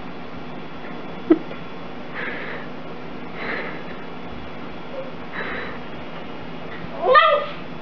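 Shiba Inu puppy sniffing the air in three short puffs, a second or so apart. Near the end there is a brief, louder pitched cry.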